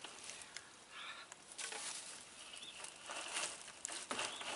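Rustling and a few light knocks from handling a solar heating panel while its tilt is adjusted.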